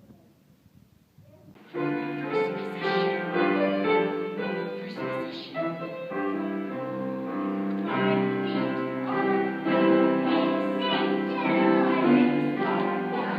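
Classical-style music starts abruptly about two seconds in, after a near-silent opening, and carries on with long held notes.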